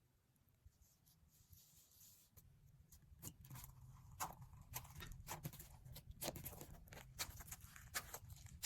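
Slime being handled, giving faint irregular clicks and small pops. It is nearly silent at first, and the clicks become steadily more frequent from about three seconds in.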